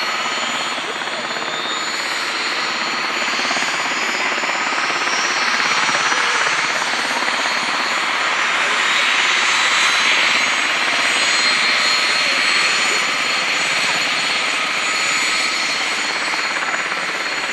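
CH-47J Chinook tandem-rotor helicopter running on the ground after engine start: steady turbine whine from its twin turboshaft engines over the rotor chop. A whine rises in pitch in the first few seconds, and the sound grows a little louder toward the middle.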